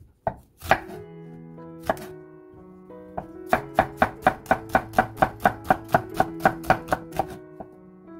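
Chef's knife slicing a halved onion on a wooden cutting board: a few separate knocks of the blade on the board, then a run of quick, even chops at about four a second starting a few seconds in.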